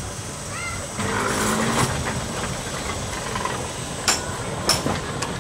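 Open-sided Blackpool & Fleetwood electric tram passing close by, its wheels running on the rails with a steady rumble that gets louder about a second in. Two sharp clicks come near the end.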